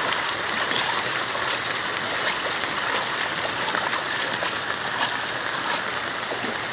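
Steady rush of floodwater and rain on a flooded street, with faint small splashes.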